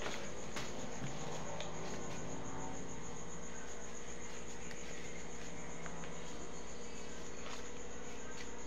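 A cricket trilling steadily: one high note pulsing rapidly and evenly without a break, over a low steady hum.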